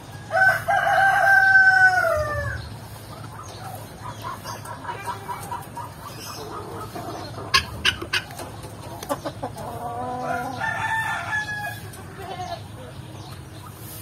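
Rooster crowing about half a second in, one long call that falls in pitch at its end, then hens clucking, a few sharp clicks near the middle, and a second crow at about ten seconds.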